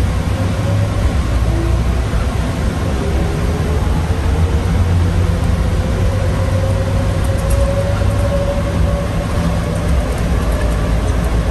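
Bombardier Innovia APM 100 rubber-tyred people mover running on its guideway, heard from inside the car: a steady low rumble with a faint motor whine that slowly rises in pitch through the middle, as the train gathers speed.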